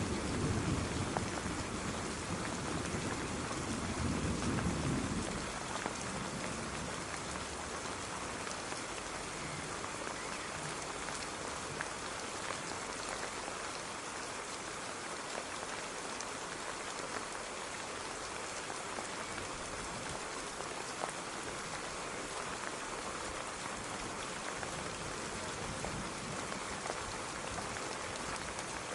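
Steady rain falling, an even hiss with scattered drop ticks. A low rumble of thunder dies away in the first five seconds.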